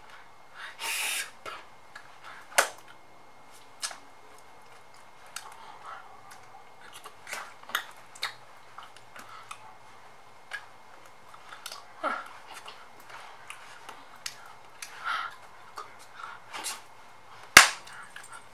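Scattered short clicks and brief breathy sounds from a person moving and gesturing, with one sharp hand clap near the end, the loudest sound.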